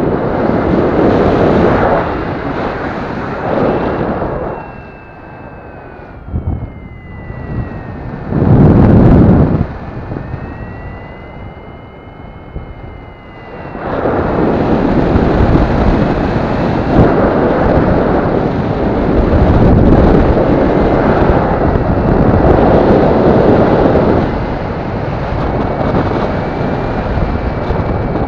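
Wind rushing over the microphone of a paraglider's harness-mounted camera in flight, coming in gusts; it drops quieter for several seconds partway through, broken by one loud gust near the middle. A thin tone drifts slowly up and down in pitch behind it.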